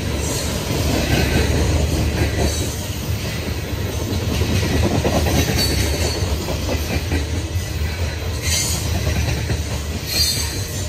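Coal train's hopper cars rolling past close by: a steady heavy rumble of steel wheels on the rails, with short high wheel squeals about eight and a half and ten seconds in.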